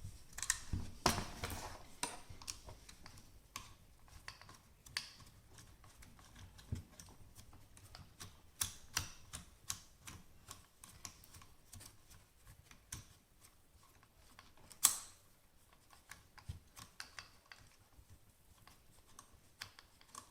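Irregular small clicks and taps of hard parts being handled as an AR-15's factory pistol grip is worked off the rifle after its screw has been removed. One sharper click comes about 15 seconds in.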